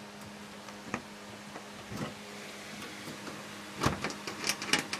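Computer case side panel being slid back onto the case and fitted: a few knocks and clicks, the loudest a cluster about four seconds in, over a steady low hum.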